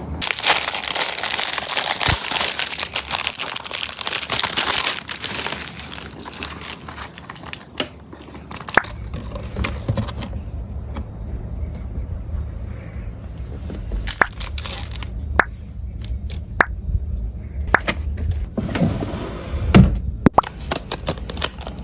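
Crinkling and crackling of stationery being handled. Then stationery is set into a wooden dresser drawer, with scattered light clicks and knocks, and a louder knock near the end as the drawer is pushed shut.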